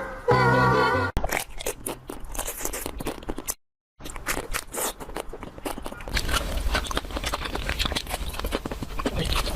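A sung music clip cuts off about a second in, followed by irregular crunching clicks, with a brief dead-silent gap near the middle and denser crunching over a low rumble in the second half.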